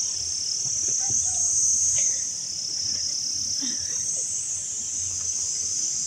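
Steady, high-pitched chorus of insects trilling in the vegetable garden, with a few faint rustles as leafy greens are picked.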